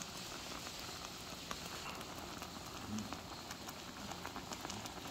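Chicken shabu-shabu broth boiling hard in a pot: a steady bubbling with many small pops.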